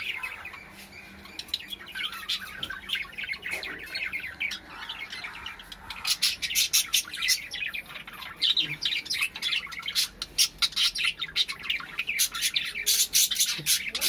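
Several budgerigars chattering with rapid, high chirps and squawks, growing busier about six seconds in.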